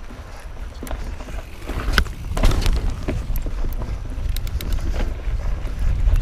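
Mountain bike riding along a dirt forest trail, heard close up: wind buffeting the microphone as a low rumble, with tyre noise and many sharp clicks and rattles from the bike over the rough ground. It gets louder about two seconds in as the bike picks up speed.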